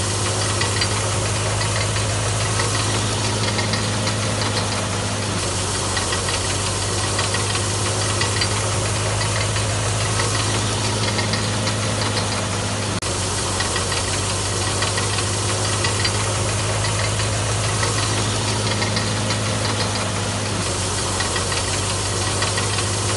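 Vikalp solar-powered thresher running, its drum stripping grain from the stalks with a dense, steady rattle over a constant low motor hum.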